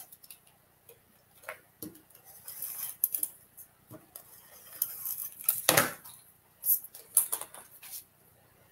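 Paper and cardstock strips being handled on a craft mat: scattered light taps, rustles and crackles, the loudest burst about six seconds in.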